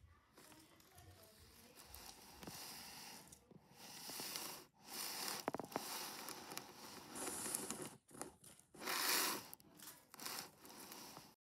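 Irregular rustling and crinkling on the fabric floor of a gerbil playpen, in bursts that stop and start abruptly, loudest about nine seconds in.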